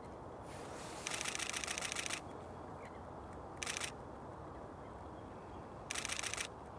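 Camera shutter firing in rapid bursts of continuous shooting: a long string of clicks about a second in, a short one midway, and another near the end, over a steady low outdoor hiss.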